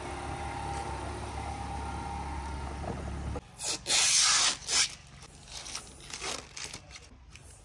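A steady low hum, then, about three seconds in, protective plastic film being peeled off the chrome window trim of a new Haval H6 HEV: a few loud tearing rips, followed by softer, scattered peeling and rubbing.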